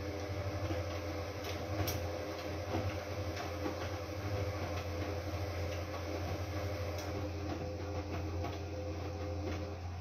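Front-loading washing machine running mid-wash: a steady motor whine over a low hum, with scattered light clicks and knocks as the drum turns. The whine cuts off shortly before the end.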